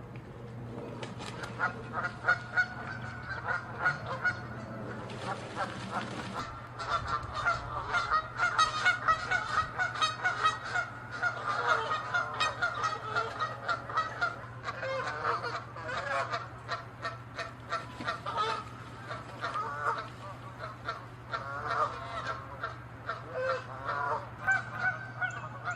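Geese honking over and over, many short calls overlapping as from several birds.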